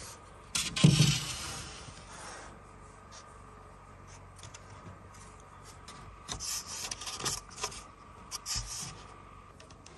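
A sudden thump about a second in, followed by a rubbing scrape that fades out, then scattered short scrapes and clicks near the end.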